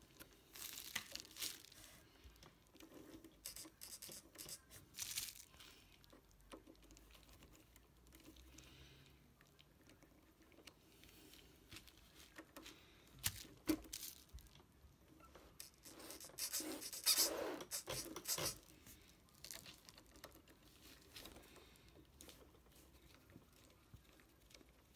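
Small screwdriver clicking and scraping against the metal driveshaft yoke and transfer case of a model RC truck, with hands rustling over the parts, as the yoke's small set screw is worked on. The sounds come in scattered bursts, with the longest and loudest run of scraping about two-thirds of the way through.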